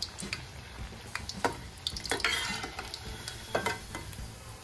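Onion bhajis (gram-flour fritters) frying in hot oil in a stainless steel kadhai, the oil sizzling and crackling. A steel slotted spoon clinks and scrapes against the pan a few times as the fritters are lifted out.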